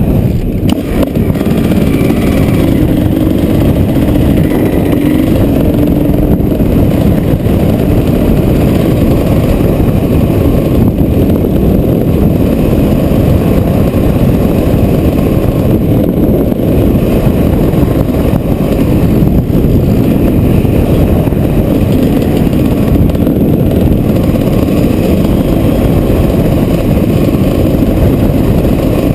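Motorcycle engine running steadily while riding, under heavy wind rush on the microphone.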